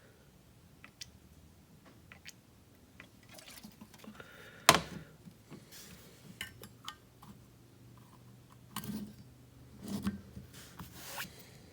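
A Zippo lighter being handled after refilling with lighter fluid: faint scrapes and small metallic clicks, one sharp click about five seconds in, and a few short scratchy rustles near the end.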